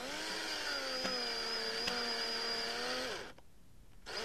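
Power driver's motor running steadily for about three seconds as it drives a screw into the bottom of a plastic soda bottle, then a brief second burst near the end.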